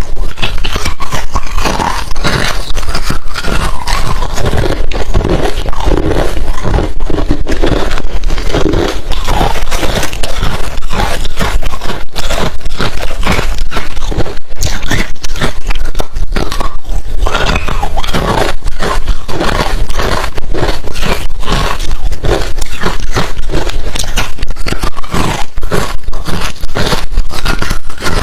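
Close-miked chewing of hard refrozen crushed ice: a dense, continuous run of loud crunches and cracks as the ice is bitten and ground between the teeth.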